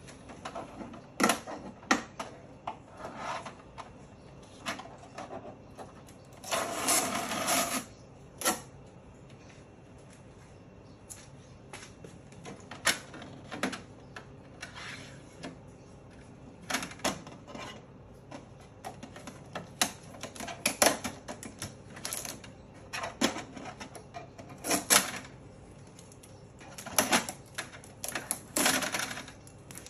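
Irregular plastic clicks, knocks and clatter as the lids and front cartridge access door of an HP DeskJet Plus 4132 printer are opened and handled, with a longer scraping rustle lasting about a second and a half, some six seconds in.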